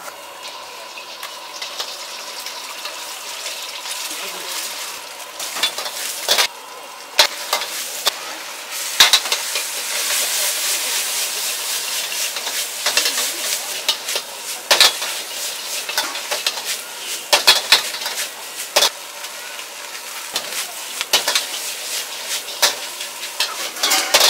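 Noodles stir-frying in a wok over a high gas flame: a steady sizzling hiss, broken by irregular sharp clanks and scrapes as a metal ladle strikes and stirs against the wok.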